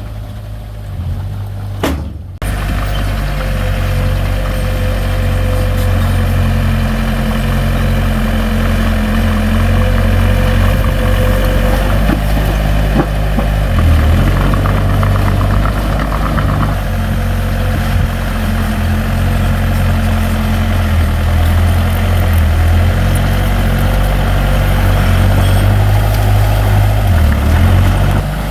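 Heavy diesel engine of earth-moving equipment running steadily with a deep drone. It breaks off briefly about two seconds in and then comes back louder and keeps running.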